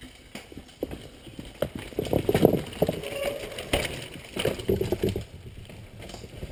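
Mountain bike riding down a rock garden past the microphone: tyres and bike knocking and clattering over the rocks. It is loudest from about two to five seconds in, then fades as the bike moves away.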